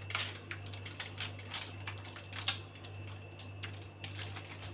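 Spoon scraping and tapping against a paper-lined baking tray as a spinach and egg mixture is spread, a string of irregular light clicks and scrapes. A steady low hum runs underneath.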